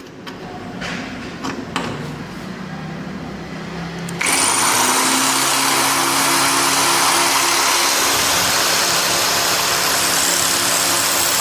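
Electric drill with a small bit drilling into a corroded screw head to remove it. It runs quietly at first, then comes on loud and steady at full speed about four seconds in.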